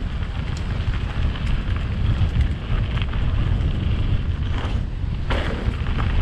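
Wind buffeting the action camera's microphone on a mountain bike riding fast down a dirt singletrack, with the rumble of the tyres and scattered clicks and rattles from the bike over bumps, the loudest about five seconds in.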